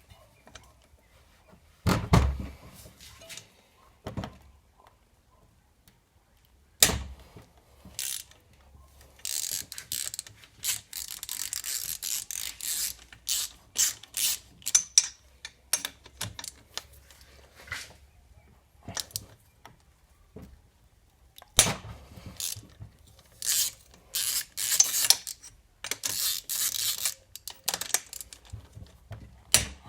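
Hand tools at work on a small scooter engine: a ratchet wrench clicking in long runs, with sharp knocks of metal parts and tools between them.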